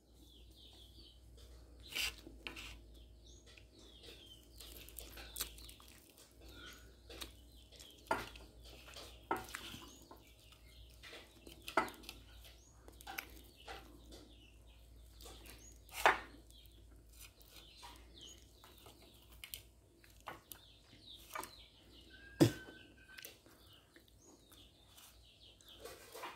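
Chopsticks and a spoon clicking and clinking against ceramic bowls and a plate every few seconds during a meal. Faint bird chirps sound in the background.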